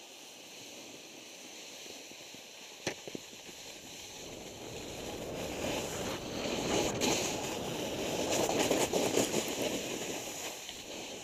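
Snowboard sliding and carving over snow, a rough scraping hiss mixed with wind on the microphone. It grows louder from about four seconds in as the board picks up speed and eases a little near the end. There is a single sharp knock about three seconds in.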